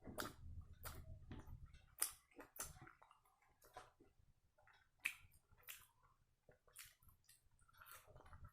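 Close-up chewing and mouth sounds of a person eating sambar vada, with irregular soft smacks and clicks.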